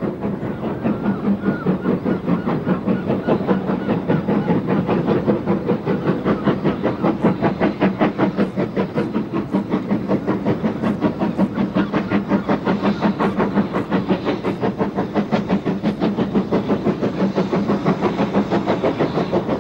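Ivatt Class 2 2-6-0 steam locomotive working a passenger train, its exhaust beating in a steady quick rhythm.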